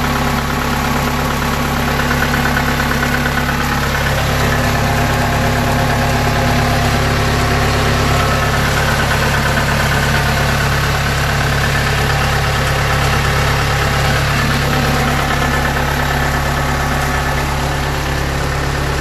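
Kubota DC70 combine harvester's diesel engine running steadily on a test run.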